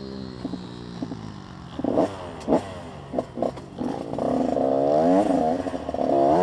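KTM 85SX two-stroke single-cylinder motocross bike engine idling, then blipped several times about two seconds in. About four seconds in it revs up and pulls away, the pitch rising and falling through the gears.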